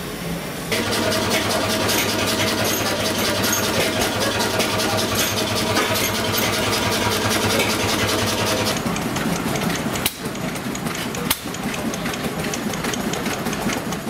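Vintage two-cylinder stationary engine running steadily at an even beat. After about nine seconds the sound drops to a quieter, more mixed engine-and-yard background with two sharp clicks.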